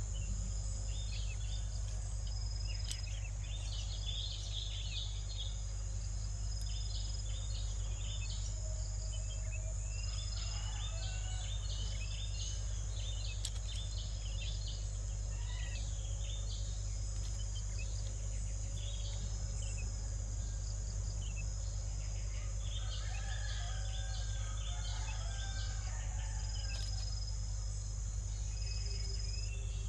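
Steady high-pitched insect drone of crickets over a low hum, with many short bird chirps and calls scattered throughout, coming in busier clusters a few seconds in, around the middle, and late on.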